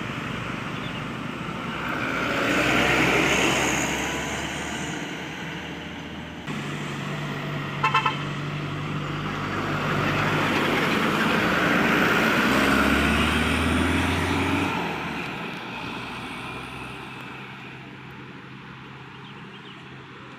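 Heavy road vehicles driving past one after another, the engine and tyre noise swelling as each nears and fading away. About eight seconds in, a vehicle horn gives three short toots.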